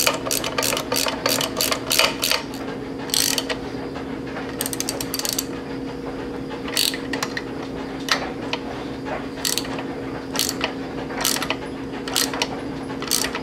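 Hand ratchet wrench clicking as a bolt on a turbocharger's housing clamp is snugged down, first in quick runs of strokes, then in single clicks about a second apart.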